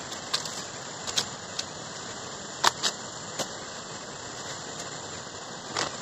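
Scattered sharp crackles and snaps of dry bamboo litter and husk being handled while a peeled bamboo shoot is packed away, over a steady background hiss.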